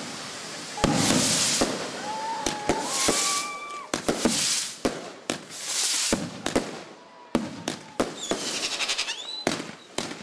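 Fireworks display: repeated sharp bangs of bursting shells with hissing rushes of rockets going up. In the first few seconds whistling tones glide and hold, and near the end a rapid crackle sets in.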